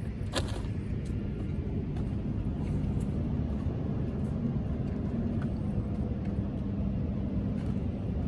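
Steady low outdoor rumble, with a sharp click about half a second in.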